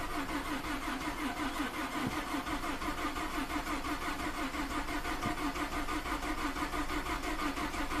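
2012 Ford F-150's 3.5-litre EcoBoost V6 cranking on the starter with an even, rhythmic pulse, not catching. A crank no-start: fuel rail pressure reaches only about 200 psi against 1250 desired, too low for the direct-injected engine to fire.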